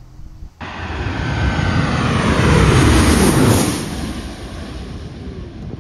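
Twin-engine jet airliner passing low overhead on final approach to land. Its engine noise comes in suddenly about half a second in, swells to a peak about three seconds in, then falls away with a dropping pitch.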